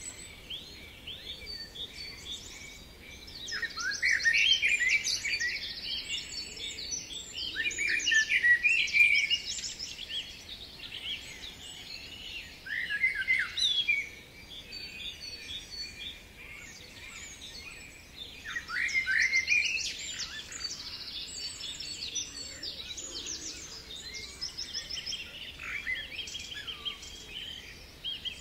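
Recorded birdsong: several birds singing and calling over one another. Loud bursts of quick chirps and trills come every few seconds, with quieter calling between.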